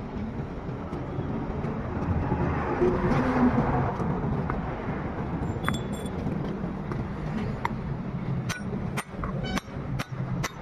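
Metal tools and parts clinking during propeller-shaft centre bearing repair work: one ringing clink about halfway and a quick run of sharp clinks near the end, over a steady low hum.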